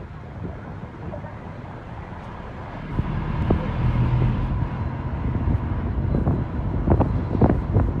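A moving bus heard from a passenger's seat: steady low engine and road rumble with wind on the microphone. From about three seconds in come a series of sharp knocks and rattles, loudest near the end.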